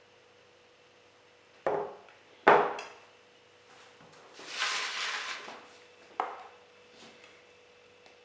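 Crockery knocking on a countertop: two sharp knocks under a second apart, then a rustle lasting about a second and one more short click.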